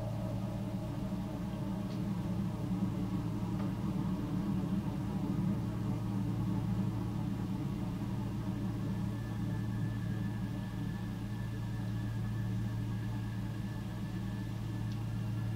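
Electronic ambient drone music: a steady low synthesizer drone with overtones held throughout, and a thin high tone entering about nine seconds in.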